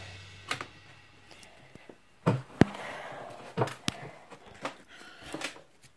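Scattered knocks and clicks, about seven or eight at uneven spacing: handling noise from a phone camera being carried and swung about. A low music tail dies away at the very start.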